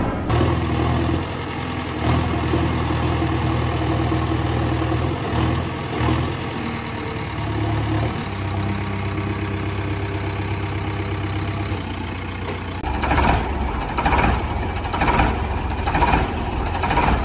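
Engine sound effect of a heavy diesel idling steadily, its pitch shifting a few times. About thirteen seconds in it changes to a slower, rhythmic pulsing beat.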